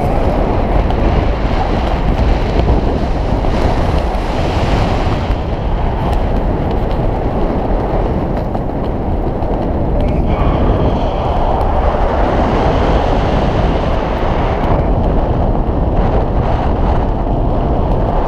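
Steady, loud wind rushing over a skydiver's camera microphone during a night freefall.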